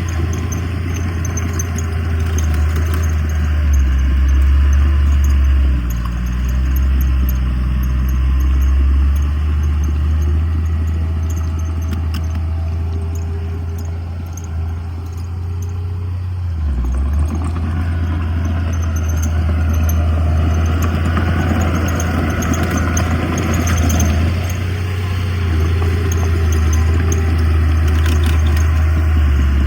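Heavy diesel engine of earthmoving machinery running under load, with some light clatter. It eases off briefly about halfway through, then works harder again.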